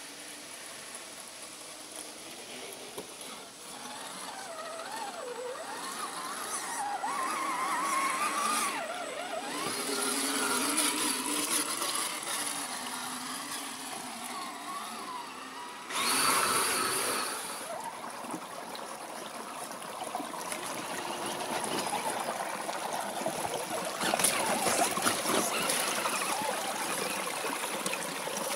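Electric motor and gearbox of a scale RC crawler truck whining, the pitch rising and falling with the throttle as it crawls through mud. A sudden burst of noise about halfway through, then the steady trickle of a small stream near the end.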